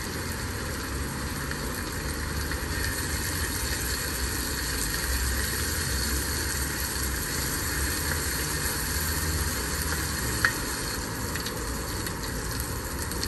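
Diced vegetables sizzling steadily in olive oil in a pot while being stirred with a wooden spatula, with one light tap about ten seconds in.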